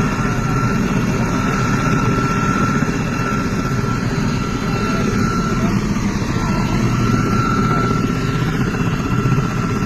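Helicopter running close by: dense, steady rotor and engine noise with a thin, steady high whine over it.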